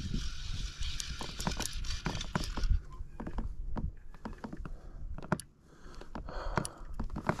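Fly reel being wound in by hand: a string of irregular clicks from the reel, with a rushing hiss of reel noise in the first couple of seconds, and a low rumble of wind on the microphone.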